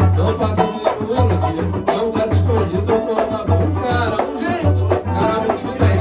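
Samba played by a small acoustic group: acoustic guitar and cavaquinhos strumming, with a man singing. A hand drum sounds a deep beat about once a second.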